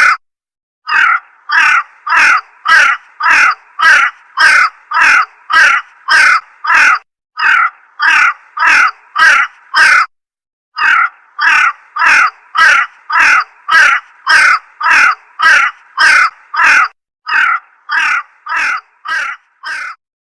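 A crow cawing over and over: harsh, evenly spaced caws a little under two a second, broken by short pauses a few times. The last few caws are somewhat quieter.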